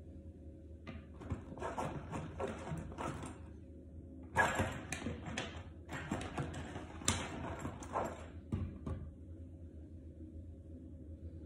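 Rustling and brushing noises of hair being handled and braided by hand. They come in several stretches between about one and nine seconds in, over a faint steady hum.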